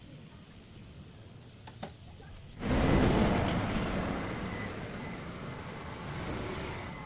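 Homemade radio-controlled hydraulic bulldozer model working. It is fairly quiet at first with a few faint clicks, then a loud, noisy rush starts suddenly about two and a half seconds in and fades slowly over the following seconds, with a thin steady high whine under it.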